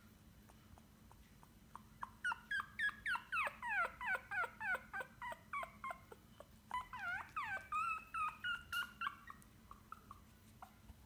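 Pomeranian puppy giving a fast run of high, falling yips, about five a second, in two bursts with a short break between them, then a few faint ones near the end.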